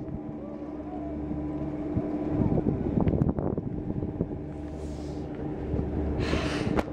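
Strong wind buffeting the microphone: a heavy, uneven low rumble that swells and eases with the gusts.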